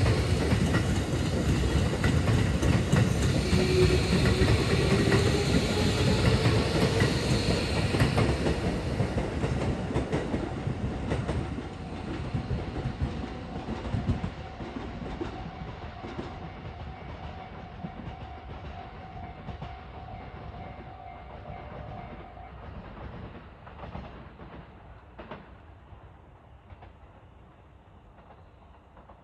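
Tokyo Metro 13000-series test train with synchronous reluctance (SynRM) traction motors pulling away. Its motor and inverter whine rises in pitch as it gathers speed, and its wheels clack over the rail joints. The sound fades steadily as the train draws off into the distance.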